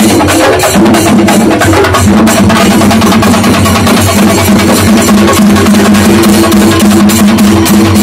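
A festival drum troupe playing live, many drums beating rapid, dense strokes, with steady held notes from a wind instrument sounding over the drumming.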